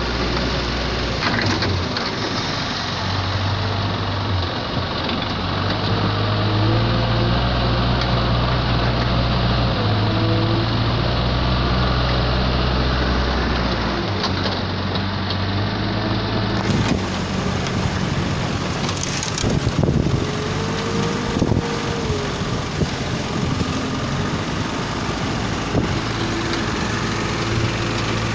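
Compact wheel loader's diesel engine running, its low tone stepping up and down in pitch as the engine is revved to scoop sand from the pile and raise the bucket.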